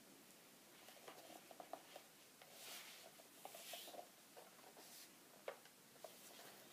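Near silence, with faint handling noise from an airsoft rifle being turned over in the hands: soft clicks, taps and rustle, and one sharper click about five and a half seconds in.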